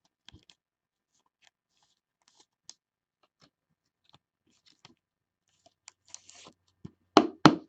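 A trading card being handled and slid into a clear rigid plastic card holder: faint clicks and rustles, a short sliding scrape about six seconds in, then two sharp plastic knocks near the end.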